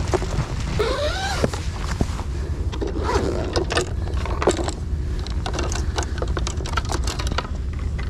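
Clicks and clatter of a hard fishing-rod case being opened and the rods inside handled, over a steady low rumble of wind on the microphone.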